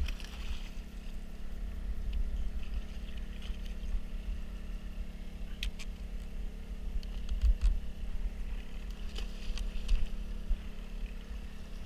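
Steady low hum of a motor running on a small boat, with a few faint clicks.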